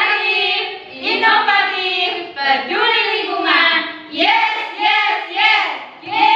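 Group of voices singing a yel-yel school cheer in Indonesian, in short sung phrases one after another.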